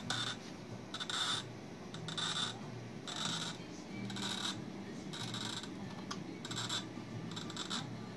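Cutting wheel of a homemade bottle-cutting jig scoring a glass bottle: a series of short scratchy rasps, about one a second, as the bottle is worked round against the wheel.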